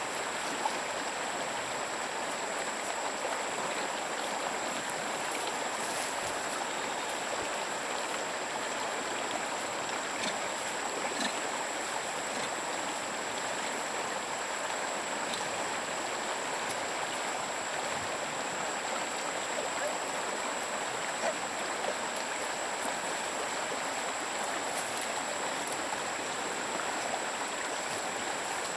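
Stream water running steadily, an even rushing sound, with a thin steady high tone above it.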